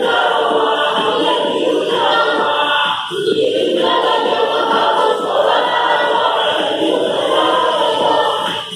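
A group of schoolchildren singing together in unison, in phrases with brief breaks between them.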